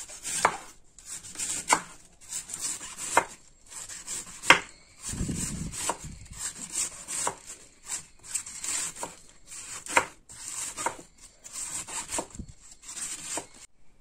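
A knife shredding white cabbage on a wooden cutting board: crisp slicing strokes, each ending in a sharp knock of the blade on the board, about one a second. A duller, lower rubbing noise comes about five seconds in, and the cutting stops just before the end.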